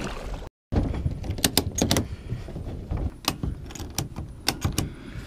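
Plastic kayak and its fittings being handled on land: a run of sharp, irregular clicks and knocks over a low rumble.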